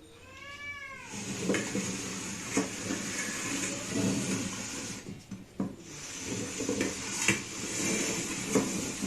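A cat meows once, a single call rising then falling in pitch. Then comes a stretch of rustling and clattering with scattered knocks as bowls and dishes are shifted about on a table.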